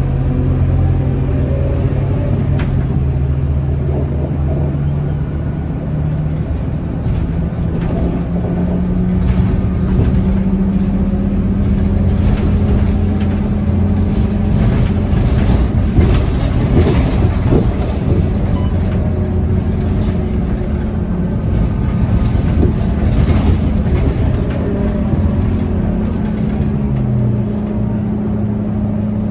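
Scania K230UB city bus engine and drivetrain heard from inside the passenger cabin, rising in pitch as the bus pulls away over the first several seconds and then holding a steady hum while cruising. The engine pitch dips briefly near the end.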